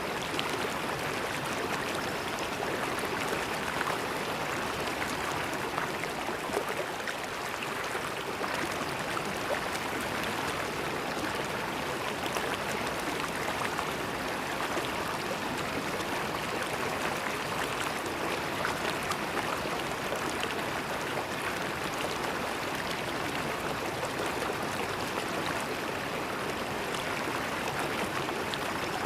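River water flowing over stones, a steady rush of running water with fine splashing and gurgling.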